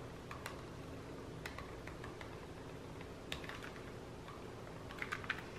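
Faint, scattered clicks and taps from a hot glue gun as a bead of glue is run along a picture frame's edge, a few coming close together near the end, over a low steady hum.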